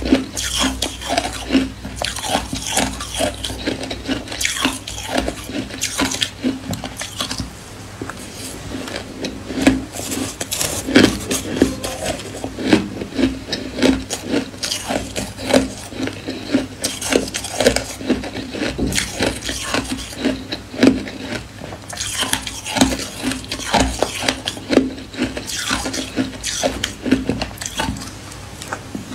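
Close-up crunching of powdery white ice being chewed, in many quick, irregular crunches, along with a metal spoon scooping and scraping the ice in a stainless steel pot.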